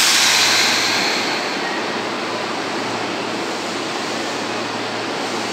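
Electric commuter trains at a station platform: a sudden hiss at the start that fades over about a second and a half, over a steady rushing noise with a low hum.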